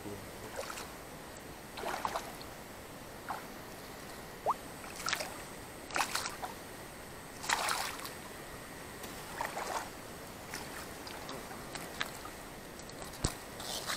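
Irregular splashes and sloshing of shallow lake water, a dozen or so short ones, the loudest about halfway through.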